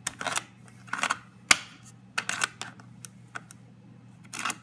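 Stowaway Tools with their tool caps snapping into and popping out of the slots of a 3D-printed ABS plastic phone case: a string of sharp, irregular clicks, the loudest about one and a half seconds in. The clicks are the case's built-in snap feature catching and releasing the tools.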